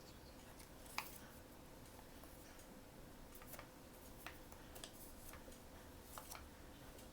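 Faint, scattered clicks and light taps from blind-box packaging being handled, with one sharper click about a second in, over a faint steady hum.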